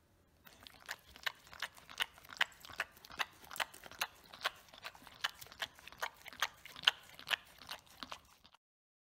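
Dog licking and smacking food remnants off a clear plastic container lid, about two to three licks a second. It stops suddenly near the end.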